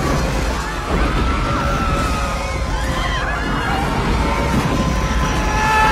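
Film soundtrack of panicked people screaming and shouting over a steady low rumble of destruction, with held musical notes coming in near the end.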